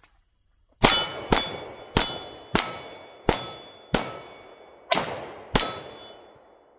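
Eight pistol shots fired in four quick pairs, each followed by the ringing clang of a struck steel plate target that fades away before the next pair.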